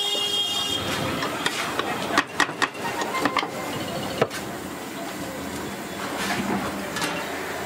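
A few sharp clacks and knocks of a hinged metal dough press being handled, opened and shut, clustered between about two and four and a half seconds in, over a steady hiss of street noise.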